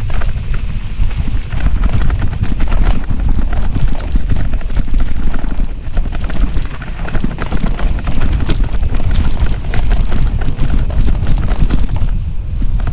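Mountain bike clattering over a rough, sandy trail, with many quick irregular knocks and rattles throughout and a heavy low rumble of wind on the microphone.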